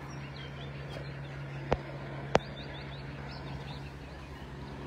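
Small birds chirping faintly over the steady low hum of a helicopter overhead. Two sharp clicks a little over half a second apart, about two seconds in, are the loudest sounds.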